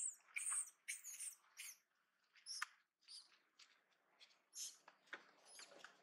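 Long-tailed macaque giving a series of short, high-pitched squeaks and squeals. They come in a quick run over the first two seconds, then more sparsely.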